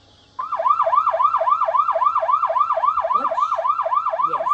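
Recorded police siren sound effect from a puppy sound-training app, in a fast yelp that rises and falls about five times a second. It starts about half a second in.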